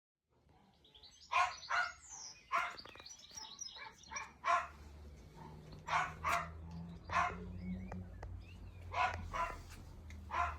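A dog barking repeatedly, about ten short barks, several of them in quick pairs, over a low steady hum.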